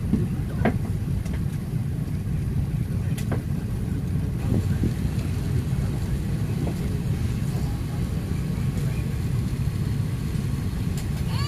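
Steady low rumble of an Airbus A380's cabin as the jet taxis, with a few faint clicks. A baby starts to cry right at the end.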